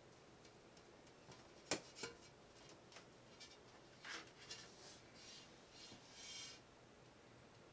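Mostly quiet, with a few faint sharp clicks, the loudest about two seconds in. Soft rubbing or rustling noises come around four seconds in and again from five to six and a half seconds.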